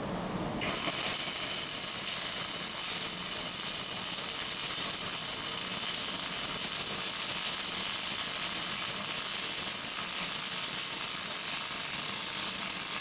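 Wire-feed arc welder striking an arc about half a second in and running steadily with an even hiss, laying a corner weld on steel angle bar.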